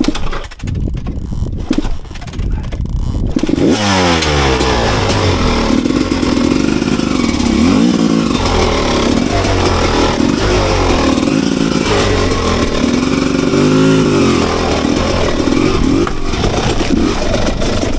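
Enduro motorcycle started on its electric starter: a few seconds of cranking clatter, then the engine catches with a rising rev about three and a half seconds in. It then runs loudly with the revs rising and falling.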